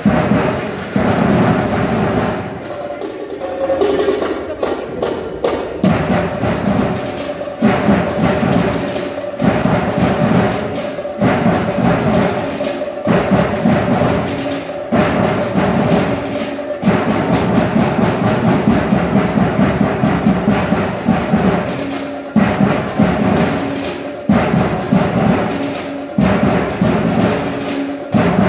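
Percussion band playing a driving drum rhythm with dense, repeated strikes over a sustained steady tone. About three seconds in the beat drops to a thinner passage, and the full ensemble comes back a few seconds later.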